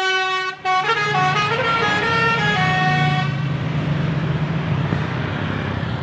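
Basuri telolet multi-tone bus horn playing a tune of stepped notes for about three seconds, with a brief break just after it starts. Under it and after it comes the low hum of the coach's engine as it drives past.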